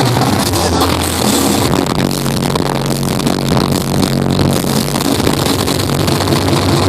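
Loud electronic dance music played live over a club PA, with a heavy bass line.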